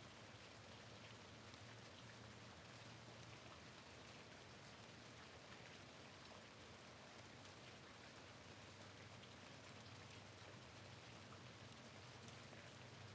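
Faint steady rain, with many small drops ticking against a window pane over a soft hiss and a low steady hum underneath.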